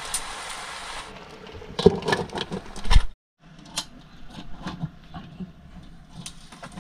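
Hermit crabs in their shells sizzling in a wok over a wood fire, then clattering and knocking loudly as they are stirred. After a sudden cut, scattered light clicks and knocks.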